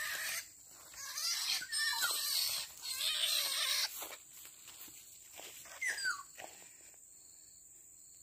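A just-caught black-naped oriole giving harsh distress squawks while it is handled: a long, ragged burst in the middle and a shorter falling call about six seconds in.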